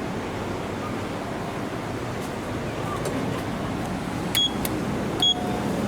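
Steady hum of traffic and station surroundings coming in through the open elevator doors, with two short, high electronic beeps about four and five seconds in.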